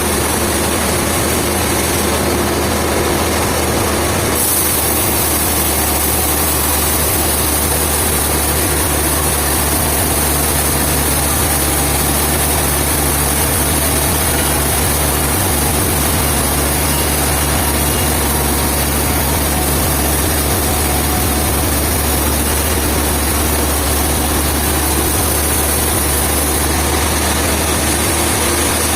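Sawmill machinery running steadily with a low hum; a high hiss joins about four seconds in and drops away near the end.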